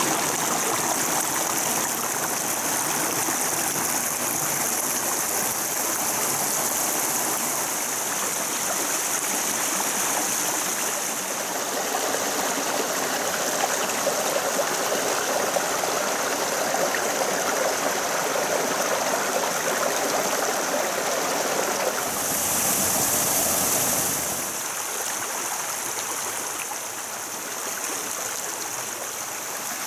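Mountain stream water running and rippling over stones in a steady rush, shifting slightly from shot to shot and a little quieter in the last few seconds.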